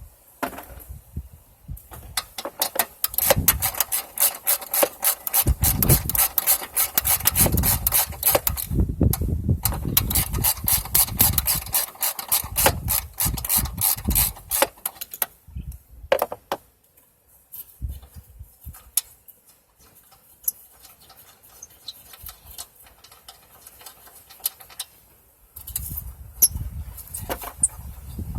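Hand ratchet clicking in long fast runs while bolts are backed out of the engine bay, then a stretch of lighter scattered clicks and tool handling. More handling and knocking comes near the end.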